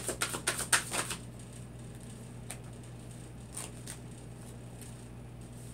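Tarot deck being shuffled by hand: a quick run of card flicks for about the first second, then only a few faint isolated ticks.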